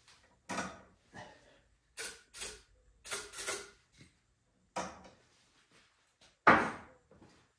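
A series of short, separate mechanical clunks and rattles from hands working on a two-stroke snowblower, the loudest one near the end.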